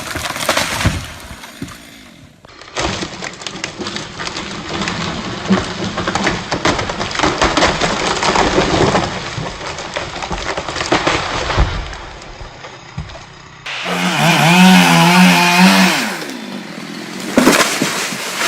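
Chainsaws running and cutting wood, with timber cracking and breaking, in several short clips that change abruptly one to the next.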